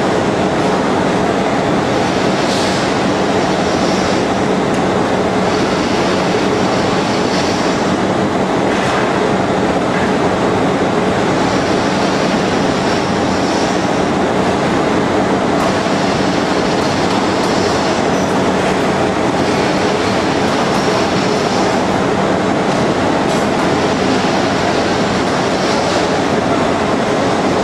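CNC shaping lathe running as it turns a porcelain insulator blank: a steady mechanical hum, with a higher hiss that comes and goes in stretches of a few seconds.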